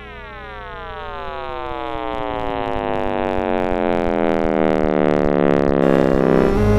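Sonification of the Big Bang's acoustic pressure waves, made from cosmic microwave background data scaled up into hearing range: a stack of tones gliding down in pitch together and growing steadily louder. Near the end it settles into a steady, deep bass hum.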